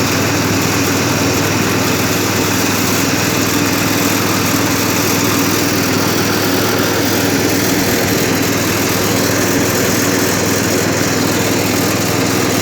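Small engine of a motorised rice threshing machine running steadily at a constant speed.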